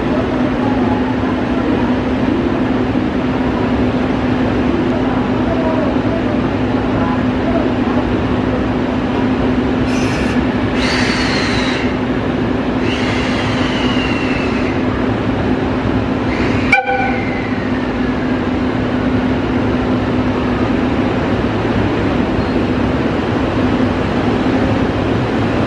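EF65 electric locomotive standing at the platform with a steady low hum from its running equipment. It sounds its horn twice near the middle, each blast hissing and falling in pitch as it ends. A sharp click follows, then one more short falling tone as it starts to move off.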